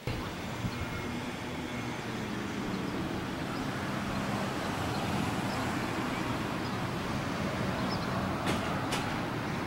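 A steady outdoor rumble with a faint low hum running through it.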